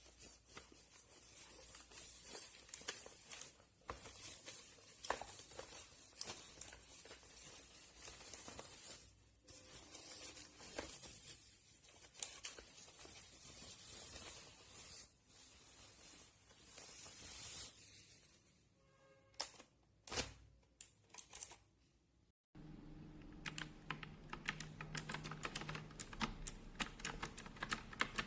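Typing on an HJK917 mechanical keyboard with clicky blue switches: quick runs of key clicks, thinning to a few scattered clicks about two-thirds of the way in. After a brief dropout, faster clicking resumes over a low hum.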